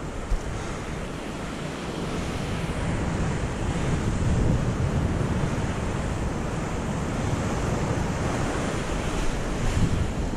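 Sea surf washing and surging against the base of a rock cliff, with wind rumbling on the microphone.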